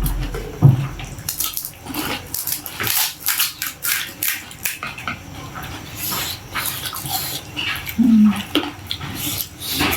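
Panipuri being eaten: crisp puri shells crunching and cracking, with slurps and clinks of a plate and spoon. A brief low voiced sound comes about eight seconds in.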